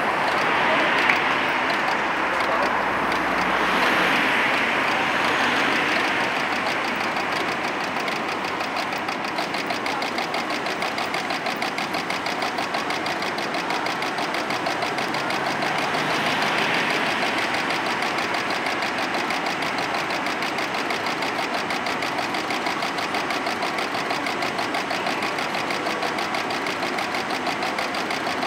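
Tatra T2 tram pulling in and stopping at a tram stop, then standing at the platform with a steady mechanical hum that has a fast, even pulse, against street noise.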